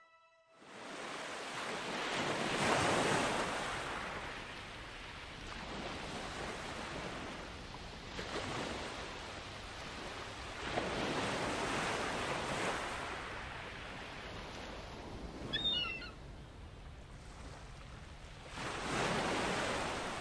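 Ocean waves breaking and washing up on a shore, the surf swelling and falling away every few seconds. A brief high chirp comes about three-quarters of the way through.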